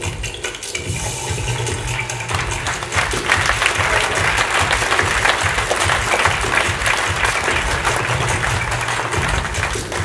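Audience applauding over the act's background music; the clapping swells about two seconds in and dies away near the end.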